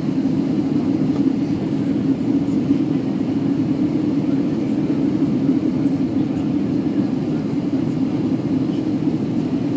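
Airbus A320 cabin noise on final approach before touchdown: the jet engines and rushing air make a steady, loud hum with a strong low-middle tone, heard inside the cabin.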